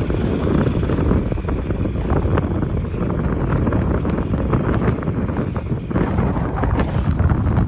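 Wind buffeting the microphone during an off-road ride, a steady low rumble with many small knocks and rattles from the rough track.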